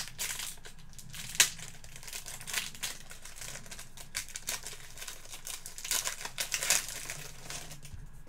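Trading cards being handled and flipped through, with irregular crinkling rustles and sharp flicks; the loudest snap comes about a second and a half in, with a busier cluster near the end.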